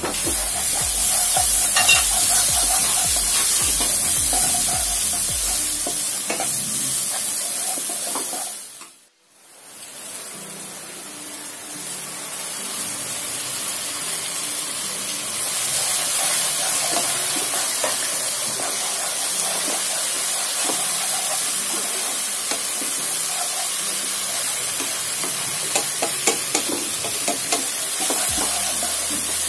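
Onions frying and sizzling in hot oil in a nonstick kadai, stirred and scraped with a wooden spatula as garlic paste and tomato paste are worked in. The sizzle cuts out abruptly about nine seconds in and builds back up, with a few sharp taps near the end.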